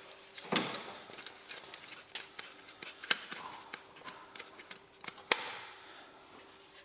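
Scattered clicks and light knocks of tools and parts being handled during bodywork, with a sharp knock about five seconds in over a faint steady hum.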